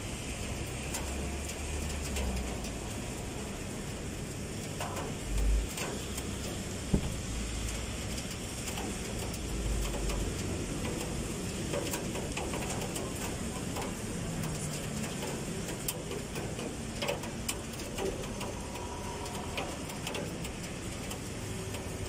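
Steady rain hiss over a city street during a typhoon, with scattered drip taps and traffic on the wet road below. A few low thumps come in the first half.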